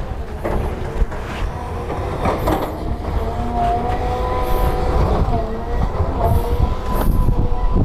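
Heavy construction machinery working close by: a diesel engine's low rumble with a steady whine over it and irregular metallic knocks and clanks.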